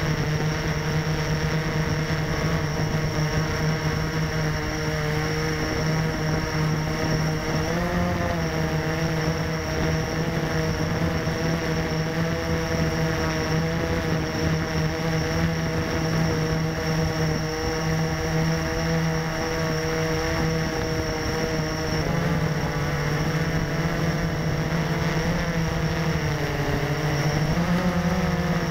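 Blade 350 QX quadcopter's four brushless motors and propellers buzzing steadily in a hover, picked up close by a camera mounted on the aircraft. The pitch wavers briefly about eight seconds in and again near the end.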